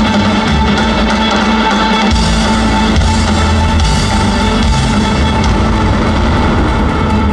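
Loud live concert music from a large orchestra and band playing film-score music, heard from the audience in a big arena.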